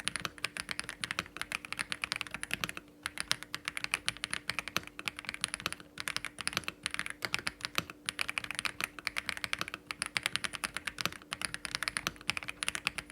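Typing on an AULA F87 Pro mechanical keyboard with LEOBOG Grey Wood linear switches (POM stems, 40 gf) on a PC plate: a fast, dense stream of keystroke clacks with brief pauses about three and six seconds in.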